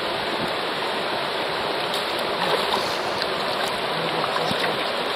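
Fast-flowing river rushing steadily over shallow riffles.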